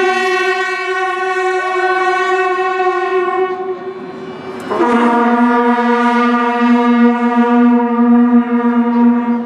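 Two long, steady horn-like notes played over loudspeakers as part of the lantern show's soundtrack: a higher note for about four seconds, then, after a brief dip, a lower and louder note for about five seconds.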